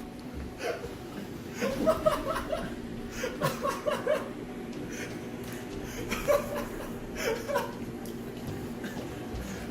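Young people laughing and chuckling in several short bouts, with a little mumbled talk.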